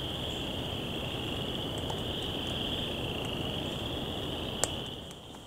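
A dense chorus of spring peepers calling, merging into a steady high-pitched trill over a low hiss. A single sharp click comes shortly before the end, and the chorus then drops in level.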